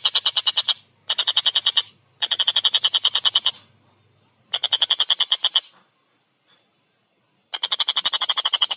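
Tengkek buto kingfisher calling in fast rattling trills of harsh repeated notes, about nine a second. The trills come in bouts of a second or so with short pauses between them, and a longer bout starts near the end.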